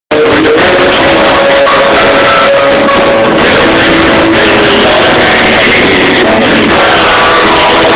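Rock music with guitar, loud and even, starting abruptly at the very beginning.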